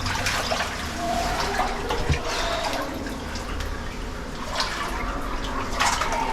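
Underground waterfall splashing steadily, with a couple of short knocks about two seconds in and near the end.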